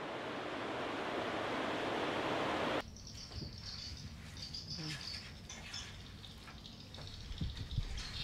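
A steady rushing noise swells for about three seconds and cuts off abruptly. After it, crickets and birds chirp in short, high, broken trills, with a few soft knocks.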